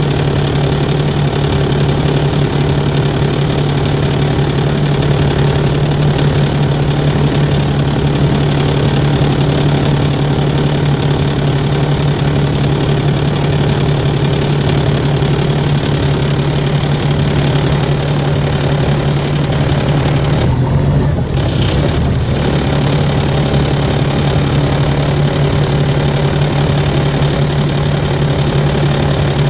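Volvo 7700A articulated bus idling with a loud, steady droning tone over the engine, one of the strange noises these buses sometimes make for no known reason. The sound thins briefly about two thirds of the way through, then carries on unchanged.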